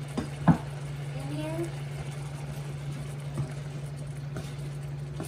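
A wooden spatula knocks once, sharply, against a frying pan about half a second in, then stirs diced tomatoes into a thick sauce, over a steady low hum.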